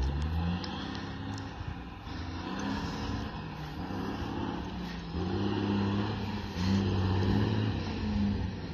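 Heavy truck engine working hard up a hill as the truck approaches, its note shifting in pitch in steps a few times and growing a little louder.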